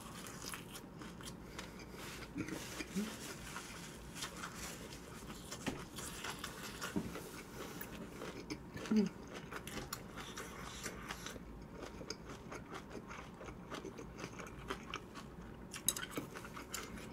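Close-miked chewing of a mouthful of a leaf wrap filled with spicy stir-fry, with many small wet mouth clicks and crunches.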